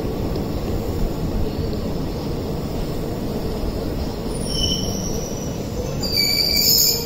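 Flying Ranee Express passenger train running with a steady rumble of wheels on track. About four and a half seconds in, a high-pitched wheel squeal sets in, growing strong near the end.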